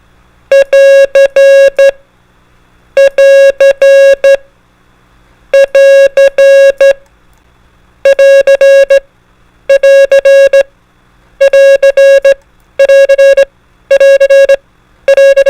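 Morse code sidetone beeping out the prosign AR (di-dah-di-dah-dit, end of transmission), repeated in nine groups that come faster toward the end.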